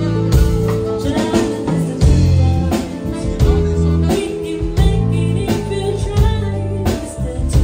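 A small live band playing in a bar: a woman sings into a microphone over sustained electric bass notes and a drum kit keeping a steady beat.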